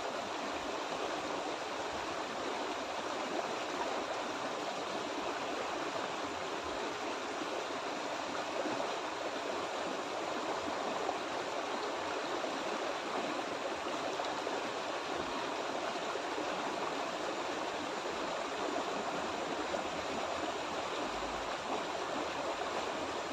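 Small rocky stream rushing steadily over a low cascade of rocks.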